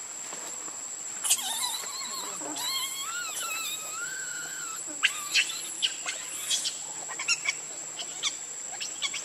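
Pig-tailed macaque giving a wavering, whining call for about three and a half seconds, then a string of short sharp clicks and squeaks. A steady high insect drone runs underneath.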